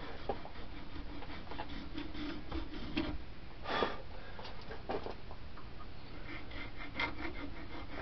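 Small triangular file scraping back and forth in a groove, cutting cross-hatching into a knife handle, in short, uneven strokes.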